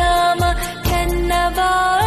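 Music from a Kannada devotional song: a held melodic line with gliding ornaments over deep bass hits.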